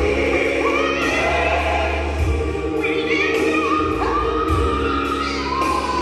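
Recorded gospel song: choir singing over a steady beat and bass.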